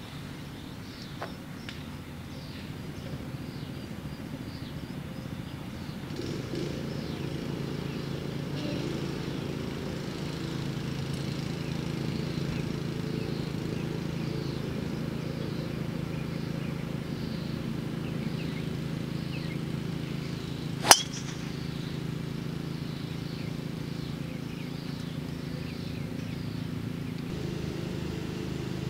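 A golf driver striking a ball: a single sharp crack about two-thirds of the way through, the loudest thing heard. Under it runs a steady low hum, with faint chirps higher up.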